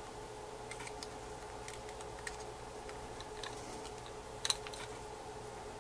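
Sparse small clicks and taps of a thin metal pry tool working at the logic board inside an opened iPhone 3GS, with one sharper click about three-quarters of the way through, over a faint steady hum.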